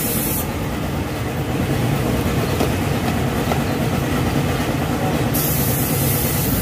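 Steady low mechanical rumble with a haze of hiss over it, unchanging throughout.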